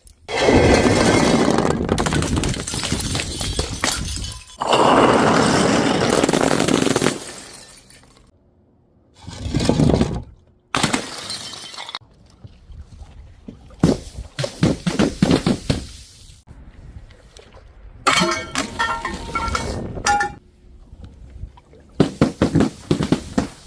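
Glass bottles shattering again and again: two long crashing breaks in the first several seconds, then clusters of sharp impacts with ringing clinks of glass shards in the second half.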